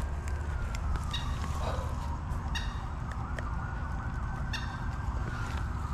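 An emergency-vehicle siren wailing, its pitch rising and falling slowly, over a steady low rumble. A few short high chirps come through about one, two and a half, and four and a half seconds in.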